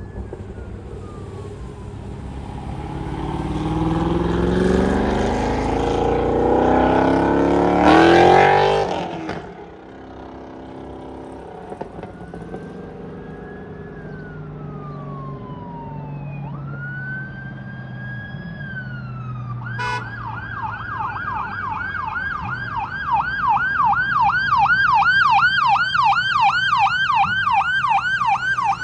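Emergency-vehicle sirens. A vehicle comes close with its siren and road noise, building to a peak and dropping away suddenly about nine seconds in. A siren then sounds a slow wail, falling and then rising, and about twenty seconds in switches to a fast yelp of about three sweeps a second.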